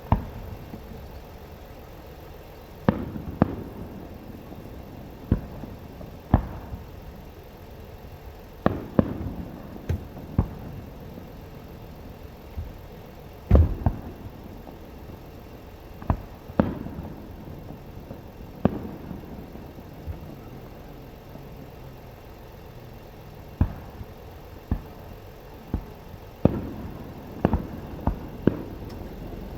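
Aerial fireworks shells bursting: a string of sharp booms at irregular intervals, often a second or two apart, the loudest about halfway through, over a steady low background noise.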